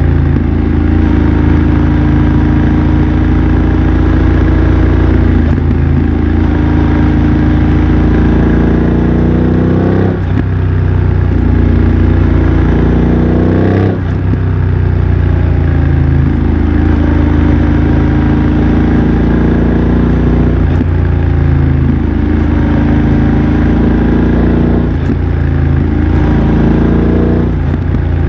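BMW F900 XR parallel-twin engine running through an aftermarket MIVV X-M1 exhaust while riding, the engine note mostly steady. About ten and fourteen seconds in, the note drops briefly and climbs again.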